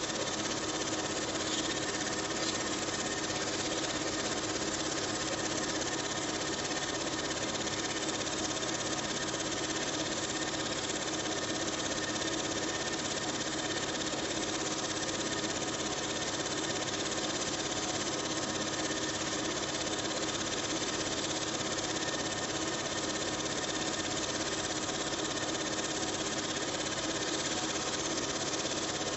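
Film projector running: a steady mechanical whir and rattle that never changes.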